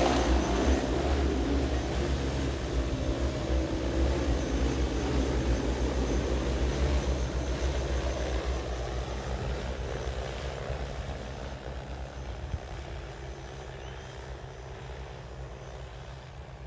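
DJI Agras T30 agricultural spraying drone's six rotors droning as it flies away, the sound fading steadily over several seconds.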